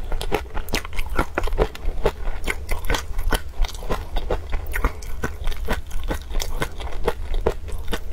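Close-miked mouth chewing of peanut sauce with crunchy peanut pieces, a quick steady run of crisp crunches, about four a second.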